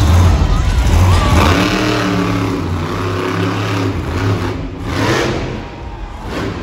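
Bigfoot monster truck's engine revving as it drives onto a row of junk cars. A deep rumble at first, then the revs rise and fall.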